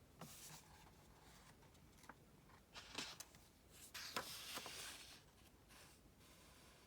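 Faint paper rustling with a few light taps and clicks, the sound of a book's page being turned and handled. It peaks in the middle and dies away near the end.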